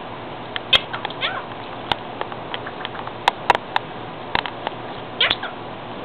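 Indian ringneck parakeet talking: "You're so cute!" about a second in, and a cut-off "You're so..." near the end. Several sharp taps fall in between.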